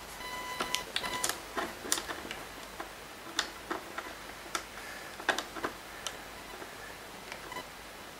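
Irregular plastic clicks and taps as hands fit and press parts of a Kirby G4 vacuum's plastic housing into place, with a faint high ring in the first second.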